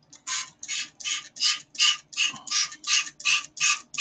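Spray bottle squirting water into a water cup again and again, about a dozen quick hissing sprays at roughly three a second.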